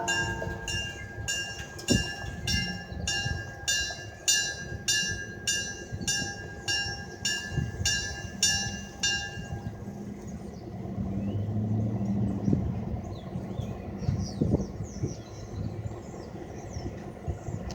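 Train horn fading out. A railroad crossing bell rings about three strikes a second while a train rumbles past with clanks from the wheels and cars. The bell stops about ten seconds in, leaving the low rumble of the train and faint chirps.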